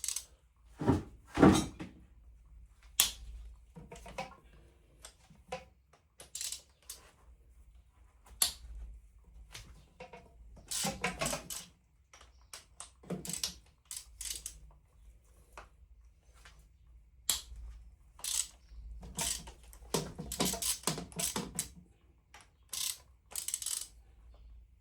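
Hand tools and screws clinking and knocking as screws are loosened and pulled from a VW T5 engine, in irregular clicks and taps with a couple of heavier thuds about a second in.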